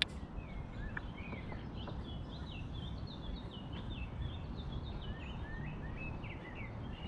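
A songbird singing a long, unbroken run of quick chirps and short whistled slurs, over a steady low outdoor rumble.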